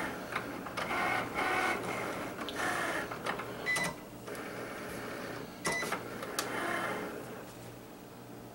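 Cricut cutting machine cutting a vinyl stencil: its carriage and roller motors whir in short stop-start runs as the blade moves over the mat, with a few sharp clicks.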